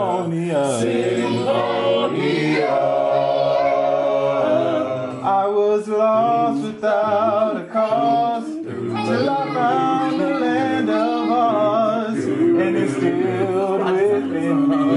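A group of voices singing a cappella in harmony, holding long chords that shift together from note to note.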